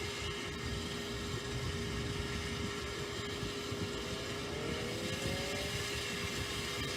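Low, steady rumble of a jet airliner departing the airport, with wind buffeting the microphone and a constant mechanical hum underneath.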